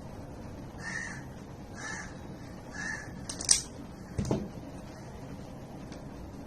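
A bird calls three times, about a second apart. Then comes a sharp click, the loudest sound, followed a moment later by a dull knock.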